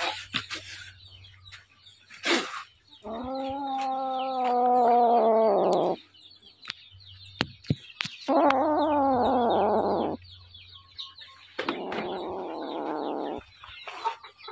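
A domestic cat giving three long, drawn-out yowls, each two to three seconds, the middle one falling in pitch at its end, with short clicks between them.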